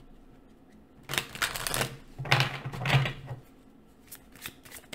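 Tarot deck shuffled by hand: two bursts of rapid card rattle, about a second in and again around two to three seconds, then lighter repeated clicks near the end.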